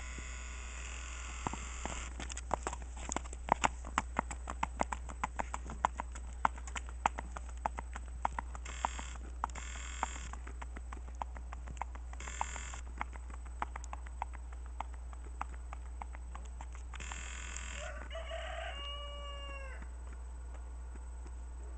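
Hooves of a smooth-gaited horse clicking on a paved road, loud at first and thinning out as she is ridden away. Near the end a rooster crows once.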